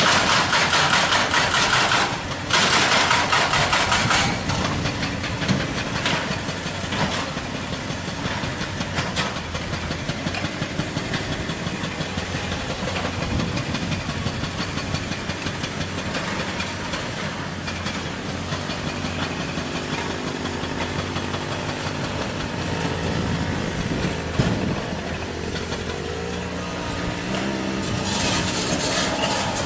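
Excavator-mounted hydraulic rock breaker hammering rapidly for the first few seconds, stopping briefly about two seconds in. Then heavy diesel machinery runs, with the engine note rising and falling, and the hammering starts again near the end.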